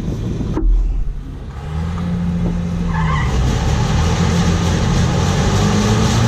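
John Deere 7720 combine's diesel engine and threshing machinery running. A low thump comes about a second in, then the sound builds to a steady running drone as the combine gets back to threshing.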